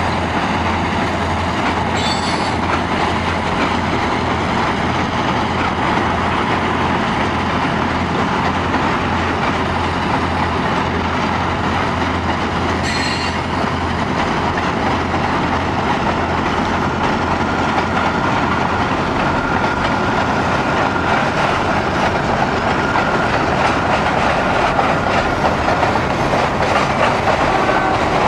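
Freight train of tank and hopper cars rolling past over a trestle: a steady rumble and rattle of wheels on the rails. A thin, high wheel squeal joins a little past the halfway point and holds to the end.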